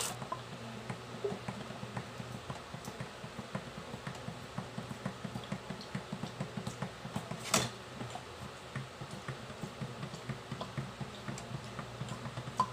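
Dishwashing at a stainless steel sink with the tap off: a sponge scrubbing a bowl in quick repeated strokes, with two sharp clinks of crockery, one about halfway through and one near the end. A low steady hum runs underneath.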